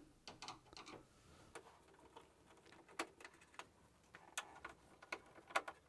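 Faint, irregular small clicks and ticks of a Phillips screwdriver turning out a screw that holds a Hoover tumble dryer's plastic control panel.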